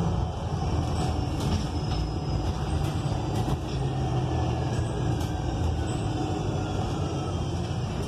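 Inside a moving ENC Axess transit bus: its Cummins Westport L9N natural-gas engine and Voith D864.6 automatic transmission running under way, with a faint gliding whine, steady road noise and several sharp rattles from the interior fittings.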